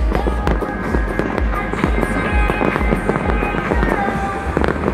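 New Year fireworks going off in quick succession, many sharp bangs close together, over music with a steady low beat and held notes.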